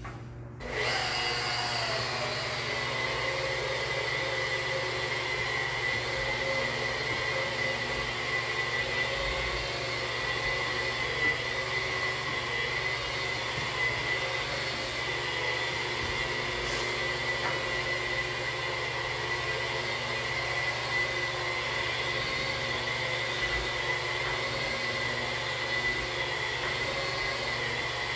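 Handheld electric polisher spinning a white 3M 4100 Super Shine pad against shower glass, buffing off hard water spots with a peroxide and baking soda compound. The motor starts about a second in and runs steadily, with a high whine over a low hum.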